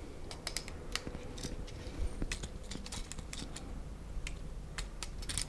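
Irregular small clicks and taps of a sheet-metal retrofit bracket and its plastic lamp sockets being handled.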